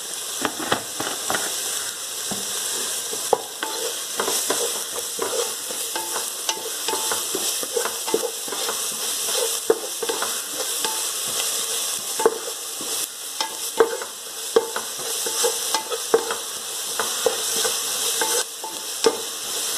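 Sliced onions frying in oil in a pan with a steady sizzle, and frequent scrapes and clicks of a utensil stirring them as they soften.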